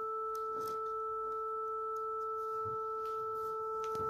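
Smartphone tone-generator app sounding a steady A (about 440 Hz) through the phone's speaker, a pure tone with two fainter higher tones above it. Light knocks as the phone and sensor are shifted on the desk.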